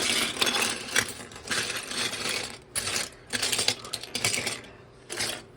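Loose plastic building-brick pieces clattering and rattling as they are handled and spread out on a table, in several short bursts with sharp clicks.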